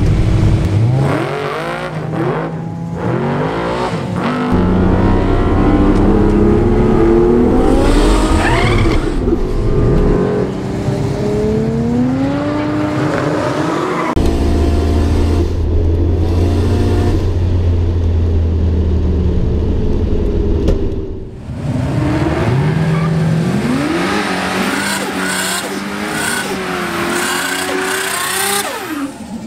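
Drag-strip cars: the 2JZ-swapped VL Commodore's engine revving hard, climbing in pitch again and again as it runs through its gears, then, near the end, another car's engine revving through a burnout with tyre squeal.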